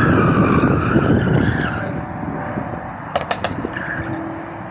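A car being driven hard on the autocross course: engine under load and tires squealing, the squeal wavering in pitch, dying away after about two seconds. A few sharp clicks follow about three seconds in.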